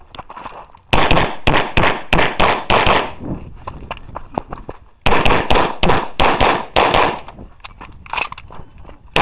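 Pistol shots fired by the shooter in rapid strings, close to the head-mounted microphone. The first string starts about a second in, there is a pause of about two seconds, then a second fast string, with a few more shots near the end.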